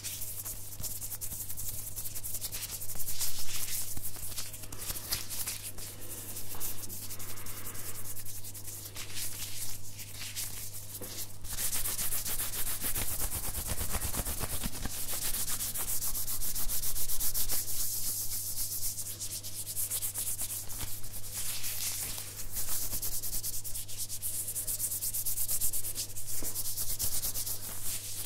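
Close-miked ASMR hand sounds: palms and fingers rubbing together and brushing over a furry microphone windscreen, a dense scratchy hiss that swells and fades. A steady low hum runs underneath.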